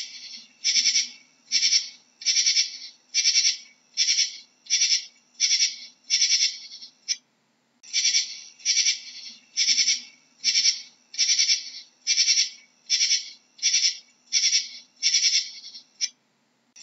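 Katydid stridulating: short, high-pitched rasping calls repeated a little more than once a second, with a brief pause about seven seconds in.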